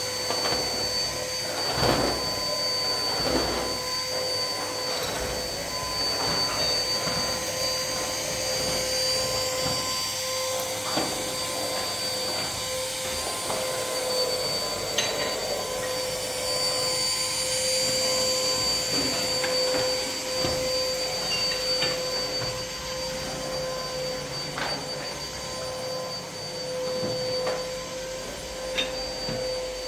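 A steady machine whine, like an electric motor running, with scattered knocks and clatters.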